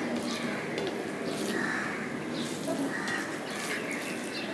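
Close-miked eating sounds: wet chewing and smacking as polao rice and curry are eaten by hand, with rice being mixed on a steel plate, over a steady background hiss.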